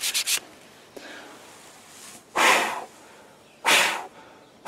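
Quick strokes of sandpaper scuffing a plastic mount plate stop about half a second in. About two seconds later come two short rushing noises, a little over a second apart.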